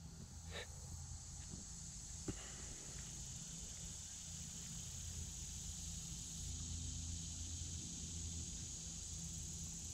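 Faint outdoor insect chorus: a steady high-pitched shrill hiss, with a low rumble underneath.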